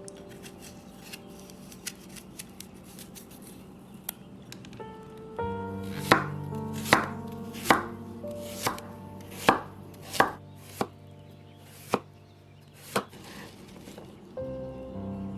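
Knife chopping food on a cutting board: light cuts at first, then about nine sharp strokes a little under a second apart, over soft steady tones.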